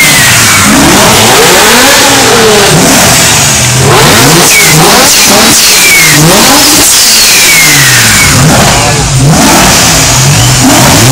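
BMW M6's V10 engine revved repeatedly, each blip climbing and falling back about once a second, answered by a Ferrari F430 revving in the background. A thin falling whistle follows several of the revs.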